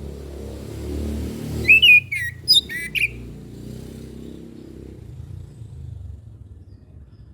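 Chestnut-capped thrush singing one short phrase of loud whistled notes with sharp pitch sweeps, lasting about a second and a half, over a low steady rumble.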